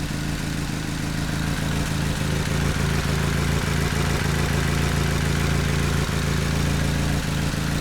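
Nissan Sentra SE-R's SR20DE 2.0-litre four-cylinder engine idling steadily, with a couple of slight brief dips about six and seven seconds in. This engine has an intermittent rough idle with sputtering that comes and goes.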